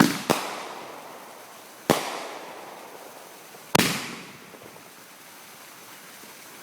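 A 500-gram consumer firework cake going off: four sharp bangs, two in quick succession at the start, then one about two seconds in and one nearly four seconds in, each trailing off in a fading crackle and hiss.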